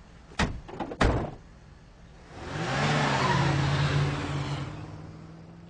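Two car doors slam shut about half a second apart. Then a car engine revs as the car pulls away, its pitch rising and then holding steady before fading.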